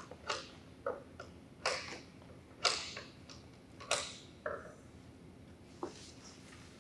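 A hand rummaging for and drawing paper tickets from a wooden raffle drum: short, irregular rustles and clicks, about eight of them, stopping about six seconds in.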